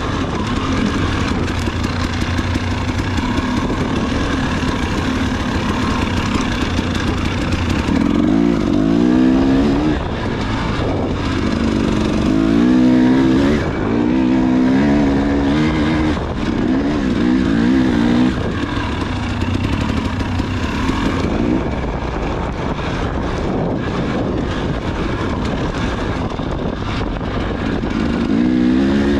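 Dirt bike engine running hard during a race lap, its revs rising and falling again and again as the throttle is worked, most busily from about eight to twenty seconds in.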